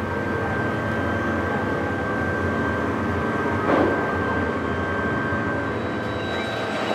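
Heavy industrial machinery running steadily with a low rumble and a few faint steady tones, with a brief louder rush about four seconds in.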